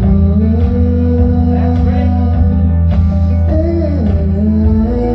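Live music from a duo: guitar and keyboard with strong sustained bass notes, under a woman singing a melody.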